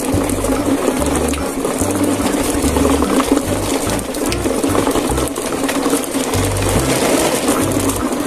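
Plastic toy trucks and a toy bus rolling over a rough dirt road, their wheels making a steady clatter, with background music underneath.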